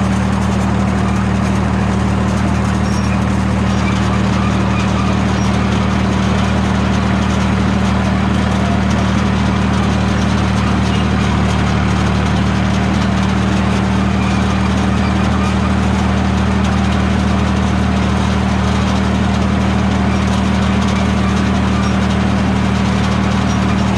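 Bulldozer engine running steadily at an even speed, with no revving.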